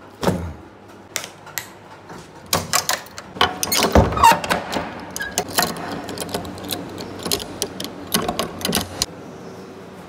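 A door being locked: a metal sliding bolt rattled across and a padlock clicked shut on its hasp, heard as a run of sharp metallic clicks and knocks, loudest in a cluster about four seconds in.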